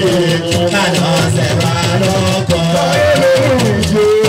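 A man singing into a microphone, his voice sliding between held notes, over hand drums and a shaker rattle playing a steady beat in a Yoruba traditional style.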